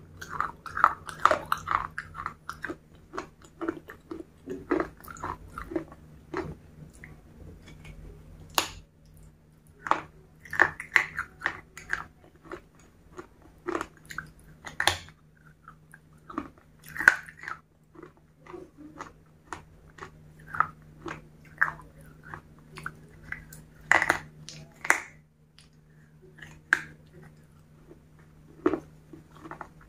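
Close-miked mouth sounds of biting and chewing soft, sauce-coated food: irregular wet smacks and clicks. A low steady hum runs underneath.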